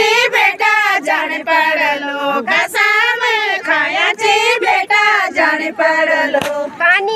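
A group of women singing a Garhwali jhumailo folk song together, high voices in a wavering melody, phrase after phrase with short breaks for breath.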